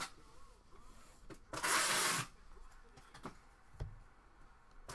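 Baseball trading cards sliding across one another in the hand, a dry swish about a second and a half in, with light clicks and a soft knock near the end.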